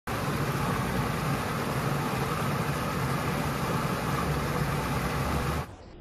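Small waterfall pouring over a stone ledge into a shallow creek pool: steady rushing, splashing water with a low rumble underneath. It cuts off suddenly near the end, and a quieter, muffled water sound follows.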